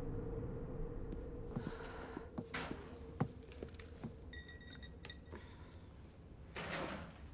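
A few light clicks, knocks and clinks, with the sharpest knock about three seconds in. About halfway there is a short high squeak, and near the end a brief rustle. A low hum fades out during the first seconds.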